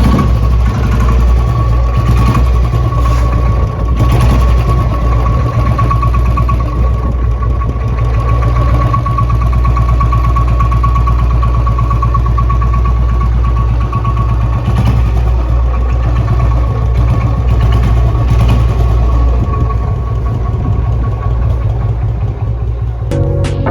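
Royal Enfield Bullet's single-cylinder unit-construction (UCE) engine running steadily, with a low, even thumping exhaust beat.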